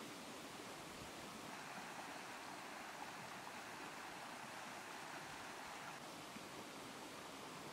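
Shallow stream rushing over rocks, a steady rush of water that fades in after about a second and stops about six seconds in, over a constant faint hiss.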